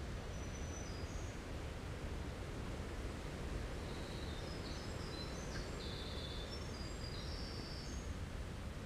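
A small songbird singing a rapid run of short, high notes at shifting pitches, from about four seconds in until near the end, with a few faint high notes near the start. A steady low background rumble runs under it.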